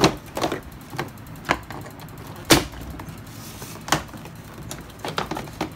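Scattered sharp plastic clicks and knocks from a car grille and its clips being worked by hand at the front bumper cover, about eight in all, the loudest about two and a half seconds in.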